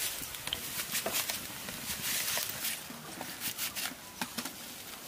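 Raw potato shreds frying in hot oil in a wok: a steady sizzling hiss with irregular crackles, mixed with the scraping of a flat metal hand grater as potato is grated straight into the oil.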